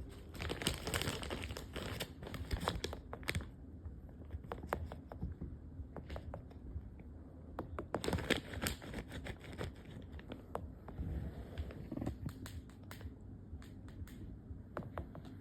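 Sugar glider chewing a treat close to the microphone: quick small crunches and clicks, busiest in the first few seconds and again about eight seconds in.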